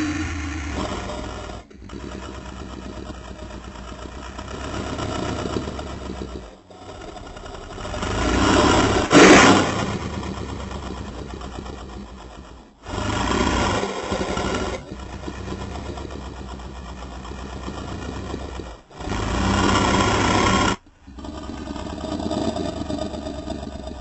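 Custom Scorpius rex monster-dinosaur vocal sound effects: a run of about six separate grating, rumbling growl-like calls, each cut off by a brief gap, with the loudest and brightest burst about nine seconds in.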